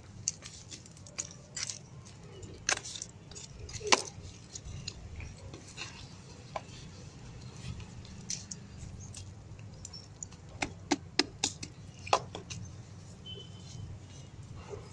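Compost scooped by hand and packed into a cut plastic water bottle: scattered crackles and taps of soil, dry bits and plastic, with a quick cluster of clicks about eleven seconds in, over a steady low hum.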